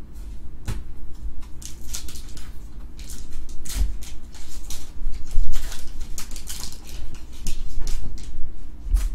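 Foil wrapper of a Pokémon XY Evolutions booster pack crinkling and tearing as it is ripped open by hand, a run of sharp crackles over several seconds.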